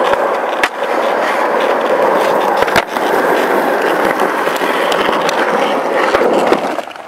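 Skateboard wheels rolling over concrete, a loud steady rumble, with a few sharp clacks of the board against the ground, the sharpest about three seconds in. The rolling dies away near the end.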